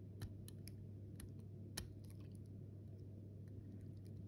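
Faint, scattered light clicks and taps of small metal watchmaking tools being handled at the bench, one a little louder near the middle, over a steady low hum.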